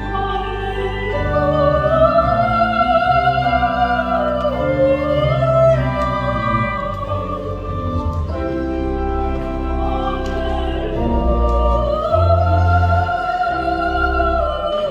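A soprano singing long, held notes with wide vibrato over sustained organ chords; the voice swells on two high phrases, one near the start and one near the end.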